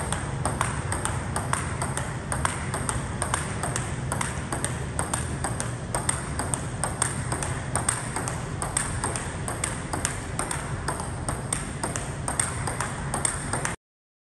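Table tennis rally: a celluloid-type plastic ball clicking off rubber paddles and bouncing on a Cornilleau Tectonic table top, about three or four sharp clicks a second in a steady back-and-forth. It cuts off suddenly near the end.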